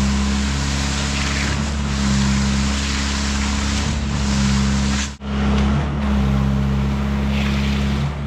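Heavy diesel engine of a concrete pump truck running steadily under load, a constant low hum with a dense rushing noise over it, breaking off for an instant about five seconds in.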